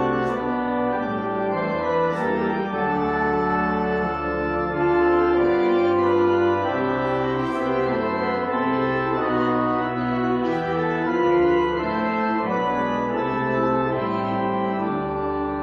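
Church organ playing a hymn tune in held chords that change every second or so.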